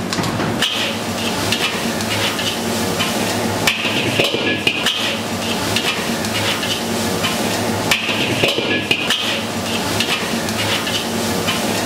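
Metal spatula stirring and scraping fried rice around a hot iron wok, with repeated clanks and scrapes against the pan over steady frying sizzle.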